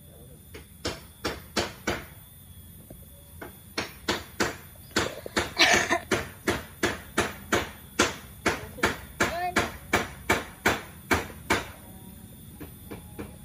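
A steady run of sharp knocks, about two or three a second, loudest through the middle and stopping a little before the end.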